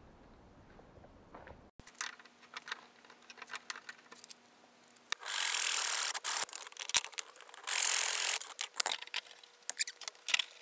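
Handsaw cutting a thin wooden batten: two long, loud strokes about halfway through, with scattered clicks and knocks of wood being handled before and after.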